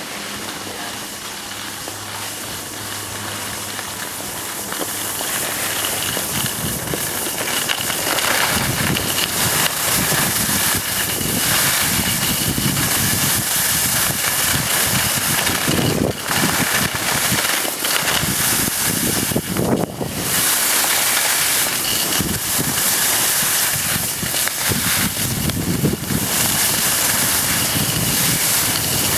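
Wind buffeting the microphone of a camera moving down a ski slope, mixed with the hiss of sliding over snow; it grows louder over the first several seconds as speed builds, then holds, with two short dips in the second half.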